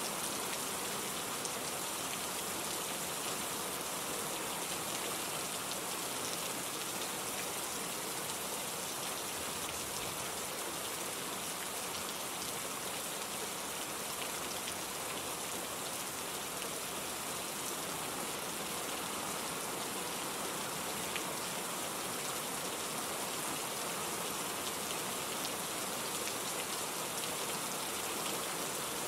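Steady rain falling: an even, unchanging hiss of many drops.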